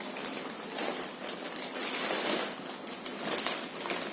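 Plastic and paper packaging rustling and crinkling as it is handled, the noise swelling about two seconds in.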